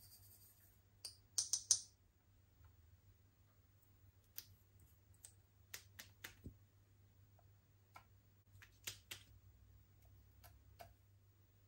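Slime being worked by hand, giving sharp sticky clicks and pops: a quick cluster of about four about a second in, the loudest, then scattered single clicks. A faint low hum runs underneath.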